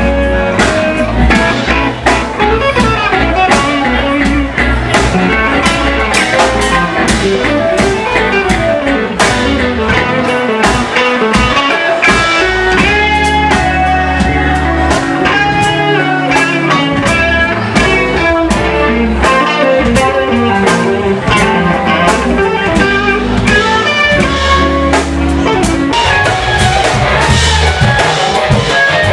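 Live band playing loudly: electric guitar lead lines over bass guitar and drum kit.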